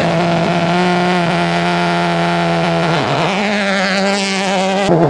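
Subaru WRX STI rally car's turbocharged flat-four launching from a standing start, held at high revs at first. The engine pitch drops and climbs again at upshifts about three and five seconds in.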